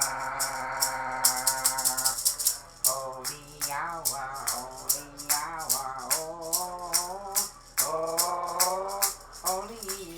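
Wordless singing in long, wavering held notes, with a hand rattle shaken in a quick, steady rhythm underneath.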